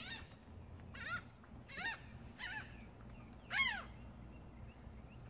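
Seagulls calling: five short harsh cries, the loudest near the end.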